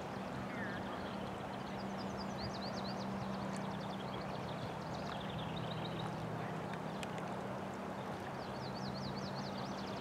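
Steady rush of shallow river water over stones, with a low steady hum beneath. A small songbird gives rapid high twittering notes in two spells, near the start and again near the end.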